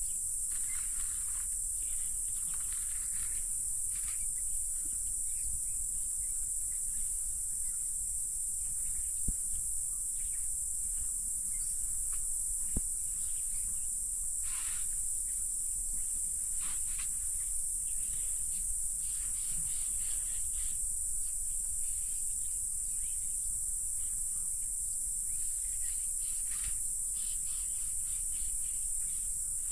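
Steady high-pitched insect chorus running without a break, with a few faint rustles and two brief soft clicks partway through.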